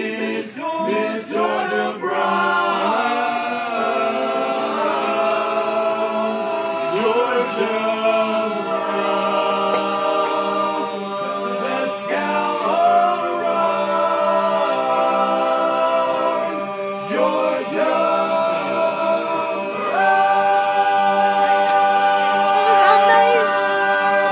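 A cappella vocal ensemble singing sustained close-harmony chords without instruments, ending on a long held chord over the last few seconds.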